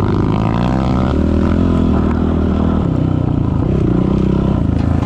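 Off-road motorcycle engine running under way, its pitch rising briefly in the first second and shifting again about three seconds in as the throttle changes.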